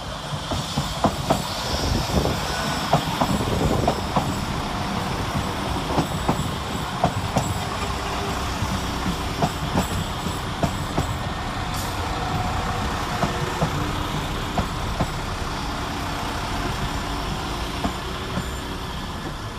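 Two coupled Class 172 Turbostar diesel multiple units running along the platform, their diesel engines and wheels giving a steady rumble. Sharp clicks of the wheels over rail joints come through it again and again.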